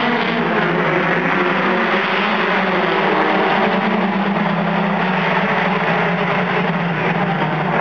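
Several short-track race car engines running together as the pack laps the oval, a steady loud drone of overlapping engine notes.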